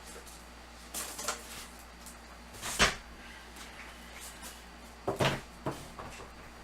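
A few separate knocks and thumps of boxes being handled, the loudest about three seconds in and a quick pair near the end.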